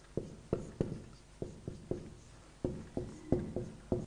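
Marker pen writing on a whiteboard: an irregular run of short taps and clicks as each letter is stroked, in quick groups with short pauses between words.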